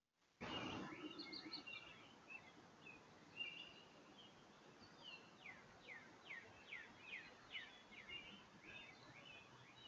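Faint birdsong: a songbird repeats quick down-slurred whistled notes, about two a second, among other birds' chirps.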